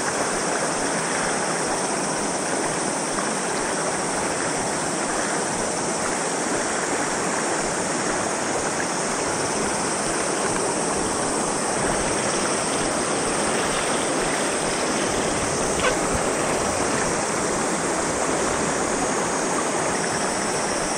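Steady rush of a fast river current foaming over rocks in a shallow riffle, an even, unbroken water noise.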